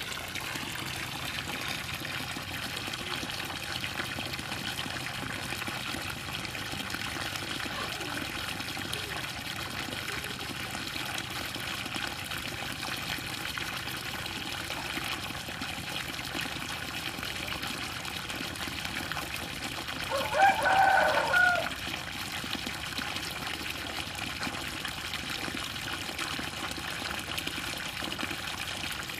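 Strong, steady flow of water gushing from the outlet pipe of a Hiflow 0.5 hp submersible well pump set in a 3-inch casing. A rooster crows once about twenty seconds in.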